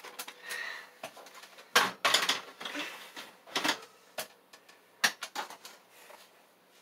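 Scattered sharp clicks and knocks of die-cast toy cars being handled and set down, a few in quick succession about two seconds in and again around five seconds in.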